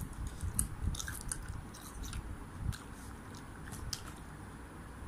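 A person chewing fish balls, with irregular wet mouth clicks and smacks.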